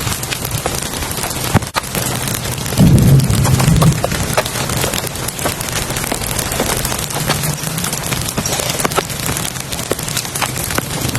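Heavy rain falling, a steady hiss with a dense patter of drops hitting a surface. A brief low rumble comes about three seconds in and lasts about a second.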